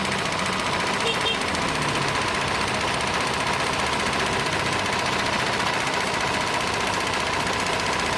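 Janome NS 385 sewing machine with its external motor running steadily while stitching: a fast, even mechanical rattle with a steady motor whine underneath.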